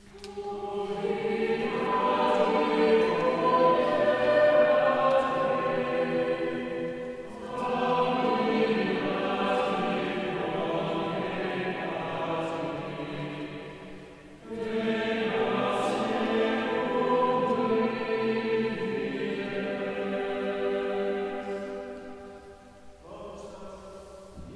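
A choir chanting a Latin hymn verse for the Stations of the Cross, sung in three long phrases with brief pauses between them, then fading out near the end.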